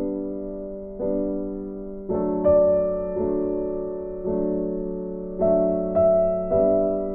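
Slow, gentle background piano music: single sustained notes and chords struck about once a second, each fading before the next.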